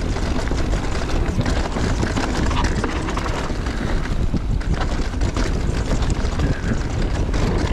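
Wind rushing over an action camera's microphone on a mountain bike riding a dirt trail, with the bike rattling and clattering over the bumps throughout.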